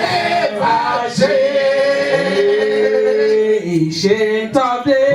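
A man singing long held, drawn-out notes, sung worship, with other voices joining in.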